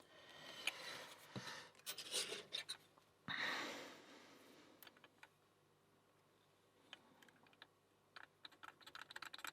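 Small clicks and scratches of lockpicking tools working in a Kwikset Smartkey lock, with two longer rustling noises in the first half and a quieter stretch in the middle.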